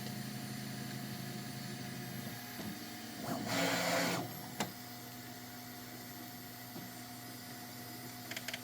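Bambu Lab P1S 3D printer humming at the end of a print, its tone dropping and getting quieter about two seconds in. A short hissing rush comes about three and a half seconds in, with a single click just after.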